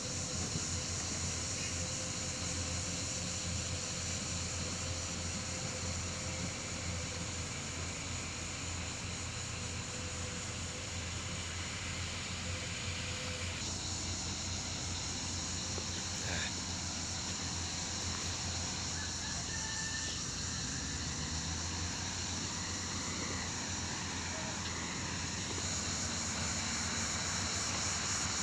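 An engine running steadily with a low drone and no revving, under a high steady hiss.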